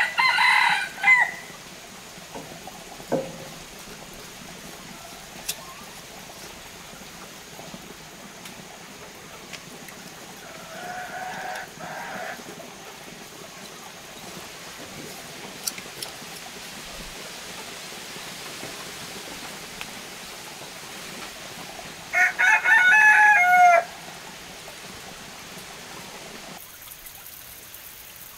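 Rooster crowing: the loudest crow comes about 22 seconds in and ends on a falling note, with a shorter call at the start and a fainter one midway.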